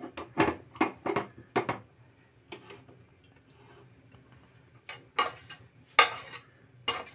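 Metal kitchenware clattering: a quick run of light knocks and clinks in the first two seconds, then three sharper clanks about five, six and seven seconds in.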